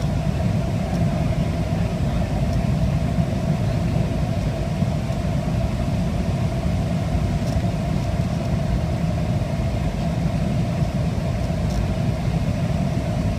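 Steady cabin noise inside a McDonnell Douglas MD-88 airliner descending on approach: a low, even rumble of airflow and the rear-mounted jet engines with a steady hum above it.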